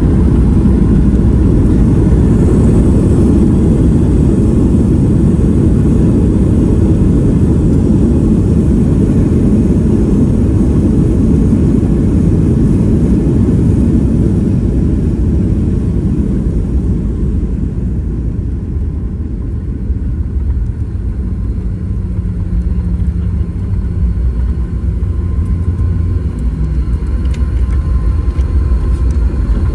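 Cabin noise of a Boeing 737-800 on its landing rollout: a loud rumble of engines and wheels on the runway that dies down from about 17 seconds in as the jet slows. It then settles into a lower steady hum with a faint low tone.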